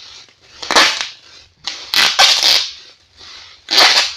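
Plastic packaging being wrapped around a parcel by hand, crinkling and crackling in several loud short bursts about a second apart.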